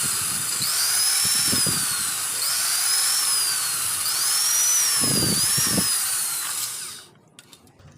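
Electric drill with a 5 mm bit drilling into a cylinder head's bolt hole. Its high whine rises and falls in pitch as the bit loads and frees, then cuts off about seven seconds in.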